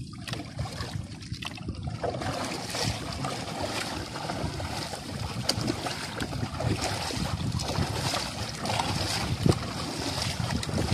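Water splashing and sloshing around a small wooden outrigger canoe as it is paddled hard, with a few sharp knocks and wind on the microphone.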